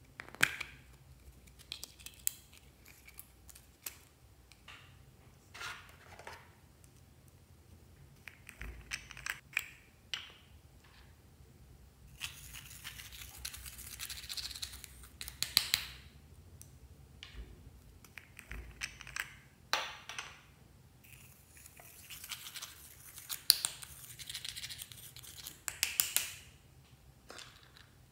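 Small plastic pots and lids clicking and tapping as they are handled. Two longer stretches of scraping and rustling as a clear plastic spoon scoops glitter out of a small jar.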